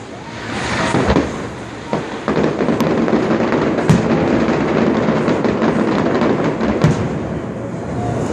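Fireworks going off: steady dense crackling, with sharp bangs about a second in, near two seconds, near four seconds and near seven seconds.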